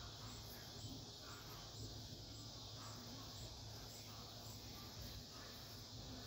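Faint outdoor ambience: a steady high drone typical of insects, over a low steady hum.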